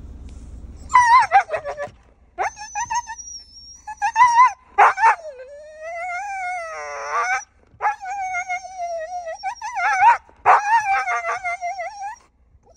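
Siberian husky howling and whining in a run of long, wavering calls that start about a second in. The dog is worked up at a deer he has spotted and wants to be let out to chase it.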